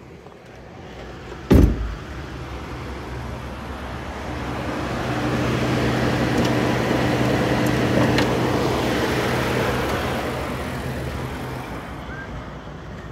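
A truck door shuts with a thump about a second and a half in. Then a 2010 Ford F-150's engine idles steadily with the air conditioning on, growing louder through the middle and easing off near the end. The owner takes the slight noise left in this high-mileage engine after a new timing chain set for normal valve ticking.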